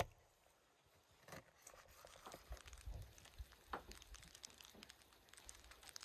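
Faint, scattered soft taps and rustles of a knife slicing and handling raw beef liver on a wooden cutting board, after one sharp click at the very start.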